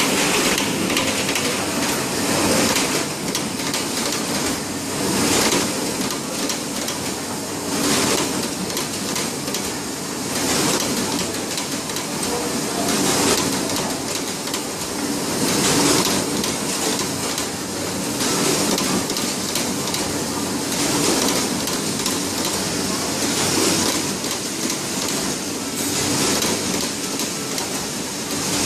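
HM-40 box corner pasting machine cycling as rigid-box corners are taped with hot-melt tape, a short burst of noise about every two and a half seconds over a steady workshop machinery din.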